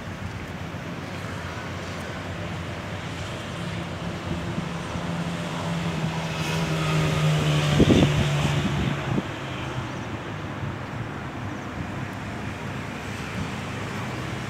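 A motor vehicle passing on the road: a steady engine hum over traffic and wind noise that builds to its loudest about eight seconds in, drops slightly in pitch and fades. Wind buffets the microphone, with a brief thump at the peak.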